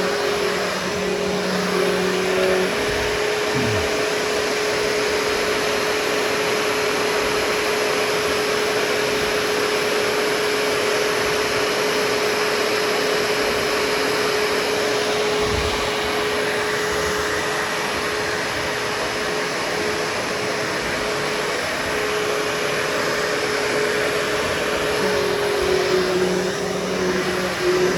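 Vacuum cleaner running steadily as it is worked over carpet: a continuous motor hum with airflow hiss, whose tone shifts a little near the start and again near the end.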